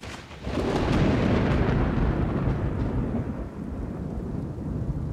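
A deep rolling rumble that swells up about half a second in, with a hiss on top that fades away over the next few seconds while the low rumble carries on.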